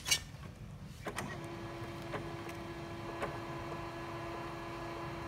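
HP Color LaserJet M277n colour laser printer calibrating: two sharp clicks, then about a second in its internal drive motor starts and runs with a steady hum, with a few light clicks.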